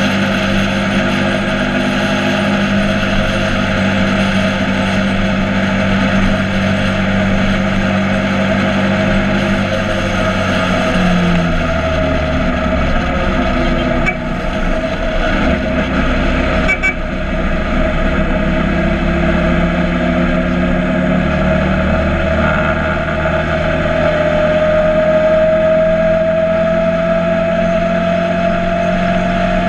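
Motorcycle engine running steadily while riding. Its pitch rises gradually over the last few seconds as it accelerates.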